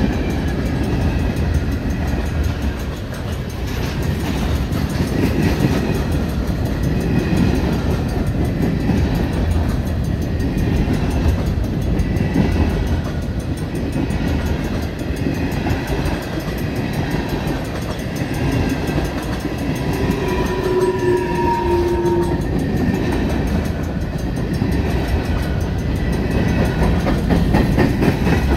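Freight train covered hopper cars rolling past, with a steady loud rumble and clatter of steel wheels on the rails. About two-thirds of the way through, a short high tone sounds for about two seconds.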